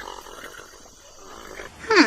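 Faint low animal sounds, then near the end a loud bleat begins, its pitch dropping sharply at the start.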